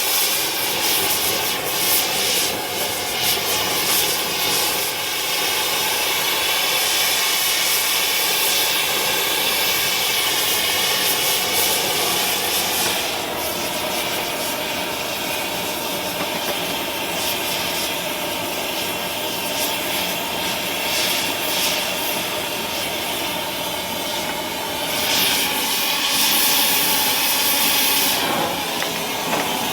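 Oxygen-acetylene torch with a rosebud tip burning steadily: a continuous rushing hiss of flame, shifting a little in tone a few times as the torch is worked.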